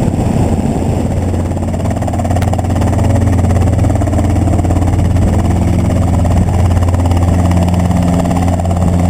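Small helicopter's engine and rotor running with a steady low drone. About a second and a half in, rough, windy in-flight noise gives way to a smoother, even hum.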